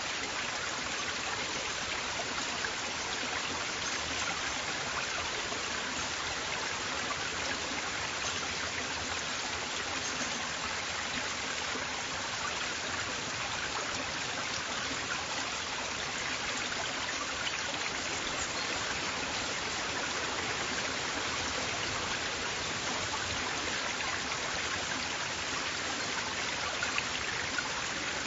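River water flowing steadily over rocks, a constant rushing and babbling with the most energy in the hiss and splash.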